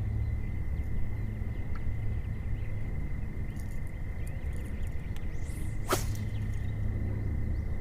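A fishing rod cast: one sharp swish about six seconds in, over a steady low rumble and a constant high whine.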